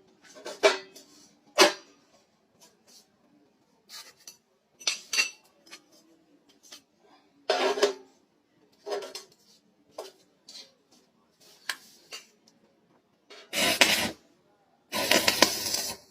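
Metal clanking: a series of separate sharp knocks and clinks as metal pieces are handled and struck. Near the end come two louder bursts of noise, each about a second long.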